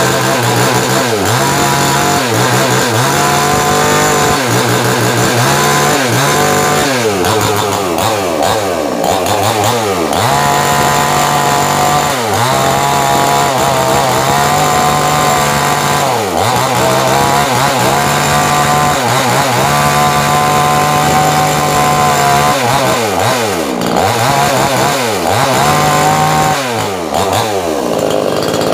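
Stihl-branded two-stroke chainsaw with a 20-inch bar cutting through a dry log, loud throughout; its engine pitch drops again and again as the chain bites under load and climbs back as it revs up.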